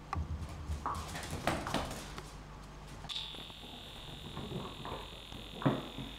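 Scuffling and soft knocks from a small dog playing with a tennis ball on a tiled floor, then a steady high-pitched beep from about three seconds in, with one sharp knock near the end.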